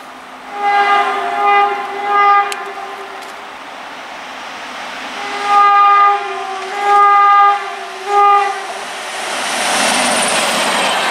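WAP-7 electric locomotive's horn sounding two sets of three short blasts, a few seconds apart. Then the running noise of the train rises and stays loud as the locomotive and coaches pass close by at speed.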